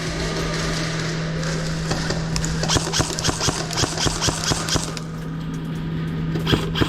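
Airsoft guns firing: scattered shots, then a fast run of shots from about three to five seconds in, and a couple more near the end. A steady low hum runs underneath.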